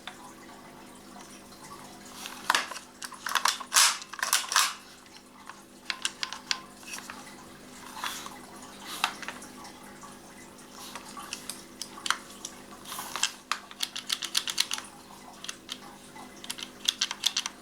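Cybergun FN Herstal M4 BB gun being handled: irregular bursts of small clicks and rattles from its plastic and metal parts as a cover is worked open and shut and the trigger mechanism is moved, over a faint steady hum.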